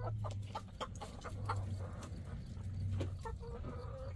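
Backyard hens clucking in a run, many short calls close together, over a steady low hum.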